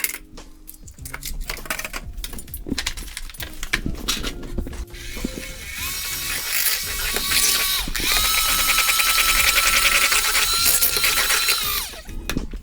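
Electric mixer beating eggs and sugar into a cake batter. Its motor whine starts about halfway through, rises in pitch as the speed goes up, then stops suddenly near the end. Rattling and clicking come before it starts.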